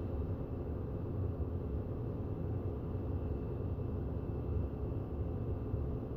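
Steady low background rumble with a faint high steady hum over it, and no distinct strokes or knocks.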